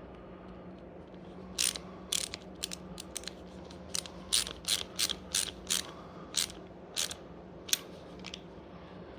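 A ratchet wrench clicking: a run of sharp, irregular clicks, about two a second, starting a couple of seconds in and stopping near the end. A faint steady low hum runs underneath.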